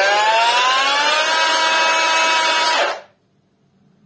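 Cheap Chinese cordless angle grinder running free without a disc: a rising whine as it spins up, then a steady high whine, and it stops almost at once near the three-second mark when the switch is released.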